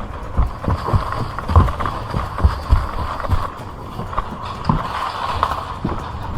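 Footsteps thudding at a walking-to-jogging pace, about two to three a second, picked up by a body-worn camera mic.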